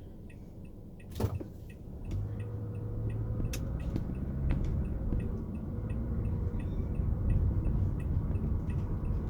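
Car engine and road noise heard from inside the cabin as the car pulls away and picks up speed, the low rumble building from about two seconds in. A single knock about a second in.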